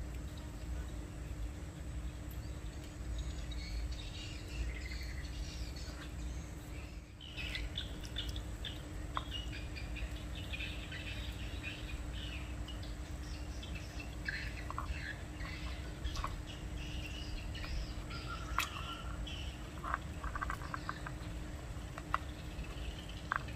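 Small birds chirping on and off in the background, over a steady low hum and rumble, with a few faint sharp clicks.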